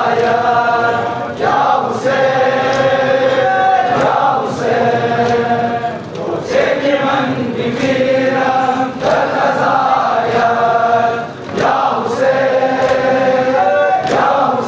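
A crowd of men chanting a Shia mourning lament (noha) together in long held, sung phrases. Sharp slaps of matam chest-beating keep a regular beat beneath it, about three every two seconds.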